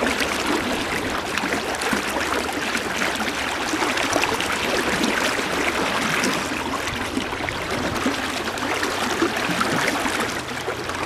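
River current rushing steadily past: a river running high in heavy, fast water.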